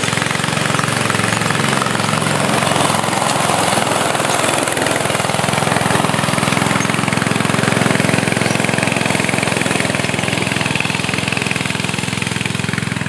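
Homemade go-kart's 8 HP single-cylinder snowblower engine running steadily as the kart slides around on gravel.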